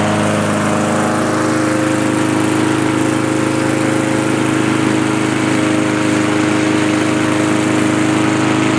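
Briggs & Stratton single-cylinder four-stroke lawnmower engine running steadily at an even speed, in a revived scrap mower that now starts and runs fine.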